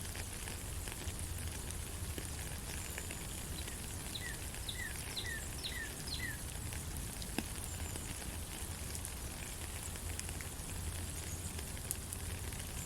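Steady rain falling in a forest, with an occasional sharp drip. About four seconds in, a bird calls a quick run of about six short, falling chirps.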